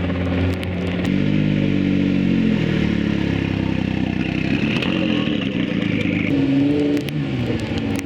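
Supercar engines running at low speed, their pitch falling and then rising and falling again as the cars accelerate and ease off.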